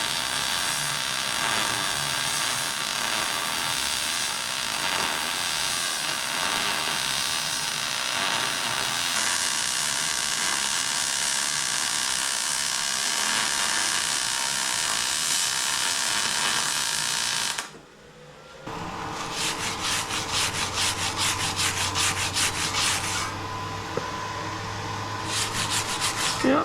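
MIG welder arc frying steadily as a weld bead is laid, stacked onto earlier passes to fill ground-out cracks. It stops about 18 seconds in, and after about a second another, more crackly pass starts, with a low hum under it.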